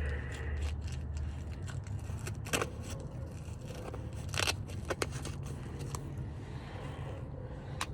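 Scattered light clicks and taps of small bolts and mounting hardware being handled, over a steady low rumble.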